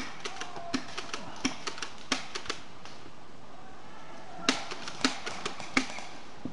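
Sharp, irregular cracks of airsoft guns firing, a quick scatter of shots over the first couple of seconds and another cluster a few seconds later.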